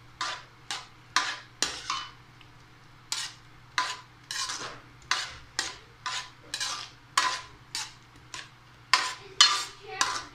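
A metal spoon stirring and scraping in a cooking pot or pan, in repeated short strokes about twice a second, with a short pause about two seconds in.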